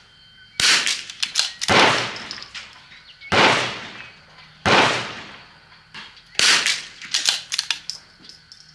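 CZ bolt-action .22 rimfire target rifle firing a string of shots with Eley match ammunition, one to two seconds apart, with fainter clicks between some shots.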